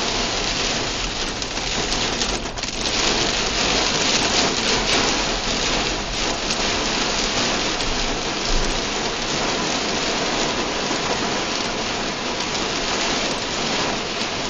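Very heavy rain with small hail pelting a car's roof and windshield, heard from inside the cabin as a dense, steady hiss of impacts.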